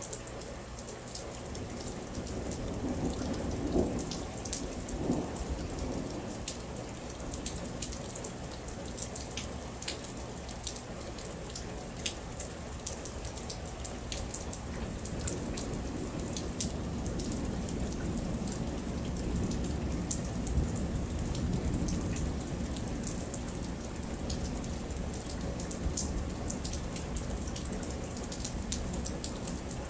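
Steady rain falling, with many individual drops striking close by. A low rumble of distant thunder swells through the second half.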